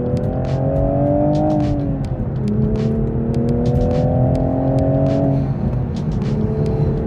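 A vehicle engine accelerating and shifting up. Its pitch rises, drops at a gear change about two seconds in, rises again and drops once more near the end, with scattered sharp ticks over it.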